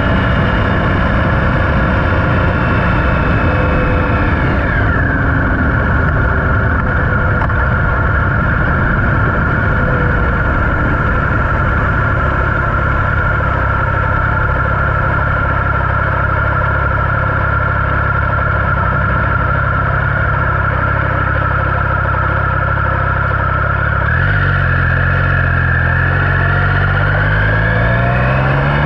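Triumph Speed Triple 1050's three-cylinder engine running at a steady cruise, with wind rushing over the microphone. Its pitch drops about four to five seconds in, holds steady, then climbs over the last few seconds as the bike accelerates.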